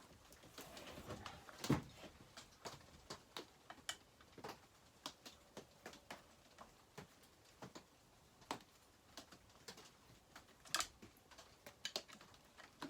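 Irregular light clicks and taps of chainsaw parts and tools being handled and fitted during reassembly, with a louder knock about two seconds in and another near the end.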